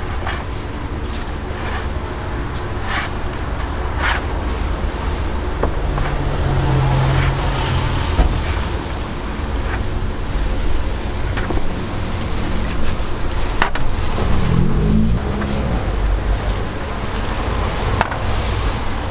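Steady street and traffic noise with scattered sharp clicks and taps from work at an egg-bread street stall.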